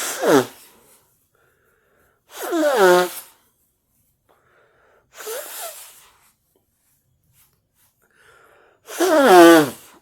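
A person sneezing four times in a row, each sneeze a sharp, hissy burst with a voiced cry falling in pitch; the third is weaker and the last, near the end, is the loudest.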